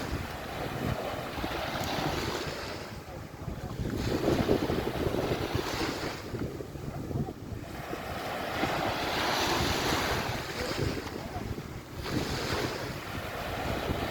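Waves washing onto a beach, the surf swelling and fading every few seconds, with wind buffeting the microphone.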